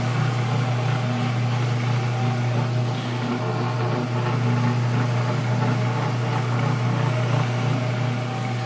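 Rotary floor machine agitating carpet, its motor running with a steady low hum.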